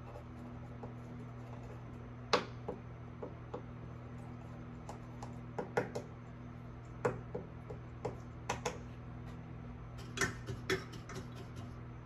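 Light, sharp clicks and taps of small hand tools at the bench, about a dozen scattered irregularly with the loudest about two seconds in, while HDMI port pins are touched up with a soldering iron. A steady low electrical hum runs underneath.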